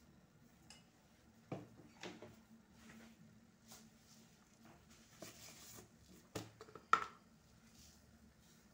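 Faint, scattered clicks and knocks of kitchen utensils and containers being handled, with one sharper metallic clink about 7 seconds in, over a faint steady hum.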